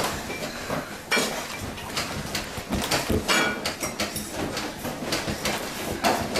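Dishes and other household objects rattling and clinking, with repeated knocks and clatters, as the house shakes in a strong earthquake.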